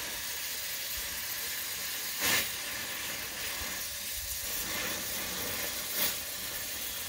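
Gas torch flame hissing steadily as it heats the inner race of a seized pinion bearing so it expands and releases from the pinion under press load. Two short, louder noises come about two seconds in and again near six seconds.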